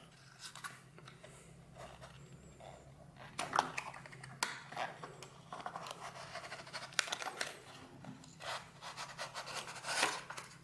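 Cardboard packaging of a just-opened Lightning dock box being handled, with scattered scrapes, rustles and small clicks.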